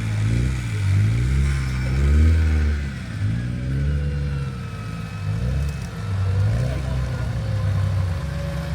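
Off-road Jeep's engine revving up and down over and over, its low note rising and falling about once a second.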